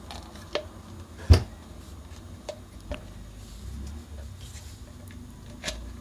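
Plastic housing of an LG front-loading washing machine drain pump clicking and knocking as the motor section and pump head are handled and fitted together, with one louder knock about a second in and a few lighter clicks after it.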